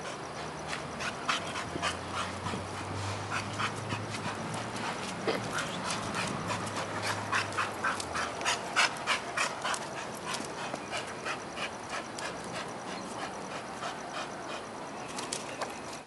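A dog panting hard: a quick run of short, sharp breaths, a few a second, thickest about halfway through.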